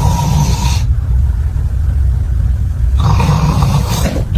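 A person snoring loudly: a steady low rattling rumble of the vibrating soft palate, with a harsher breath fading out near the start and another rising about three seconds in.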